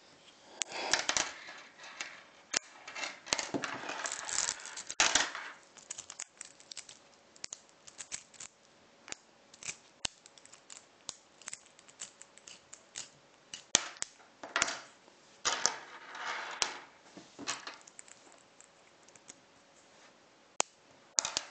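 Small magnetic metal balls clicking and clattering against each other as a cube of them is pulled apart and joined into a line: sharp single snaps of balls jumping together, with longer rattling stretches near the start and again past the middle.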